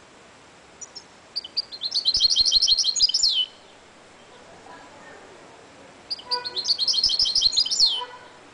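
Caged goldfinch × canary hybrid (mule) singing two song phrases about two seconds each. Each is a fast run of repeated high notes, about eight a second, ending in a falling note.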